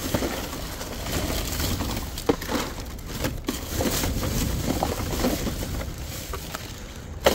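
Black plastic garbage bag rustling and crinkling as gloved hands rummage through it, with cardboard cereal and snack-bar boxes sliding and knocking against each other in irregular bursts.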